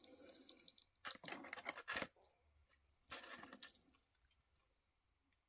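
Faint rustling and clicking of fingers handling two small diecast model jeeps, in three short spells, the last about three seconds in.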